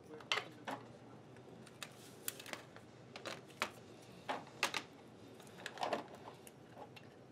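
Atlas horizontal milling machine knee-assembly parts being handled and set down on a metal tray during disassembly: scattered light metal clinks and knocks at irregular intervals.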